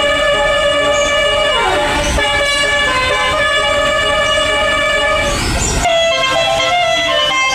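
Indonesian bus 'telolet' horn, a multi-tone musical air horn, playing a tune of held chords with falling swoops about two seconds in and again just before six seconds. There the notes change and the low rumble underneath drops away.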